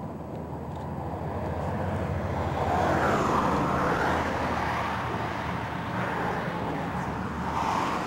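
Highway traffic passing on the bridge roadway: a steady rumble of tyres and engines that swells as vehicles go by, loudest about three seconds in and again near the end.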